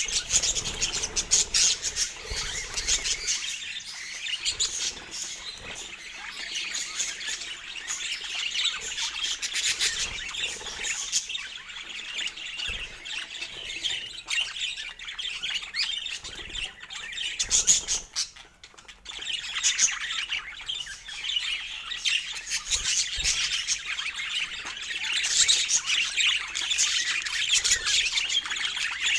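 A flock of budgerigars chattering, with constant squawks and chirps that dip briefly midway.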